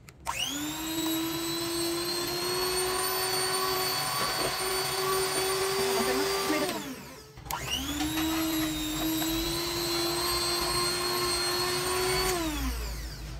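Electric hand mixer beating butter and powdered sugar: the motor whirs up to speed, runs steadily for about six seconds and winds down, then starts again and runs about five seconds before winding down and stopping.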